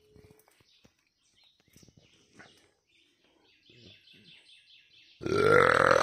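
A person lets out a loud, rough guttural sound about a second long near the end, its pitch rising slightly. Before it there is a faint, rapid high chirping trill.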